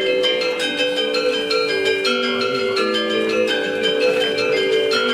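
Balinese gamelan music: metallophones struck with mallets, many ringing notes overlapping at a quick, even pace.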